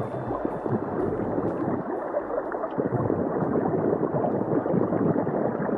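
Water gurgling and sloshing, a steady churning noise.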